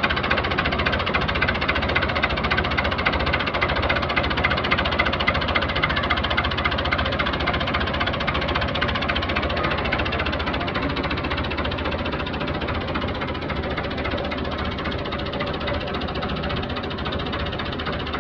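Fiat 640 tractor's four-cylinder diesel engine running steadily at idle, heard close up at the open engine bay, with the rapid, even knock of a diesel.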